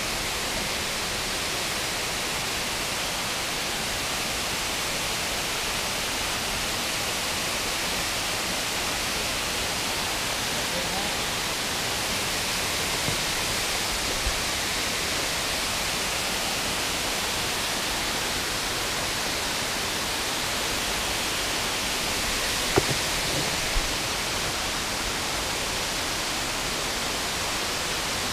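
Steady rushing of creek water, an even hiss. A few brief knocks stand out, the sharpest about two-thirds of the way in.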